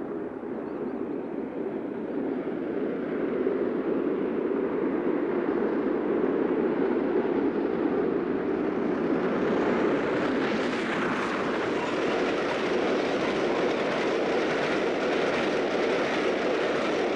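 LNER V2 three-cylinder steam locomotive Green Arrow working a passenger train, its exhaust and rolling coaches growing louder as it approaches. From about ten seconds in, a brighter rush of wheels on rail joins it as the coaches pass close by.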